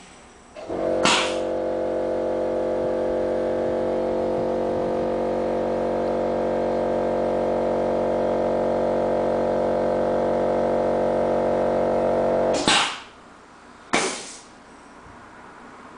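Heat-set machine running its process cycle: a steady, many-toned electrical hum for about twelve seconds, switched on and off with short bursts of hiss. A further hiss burst comes near the end.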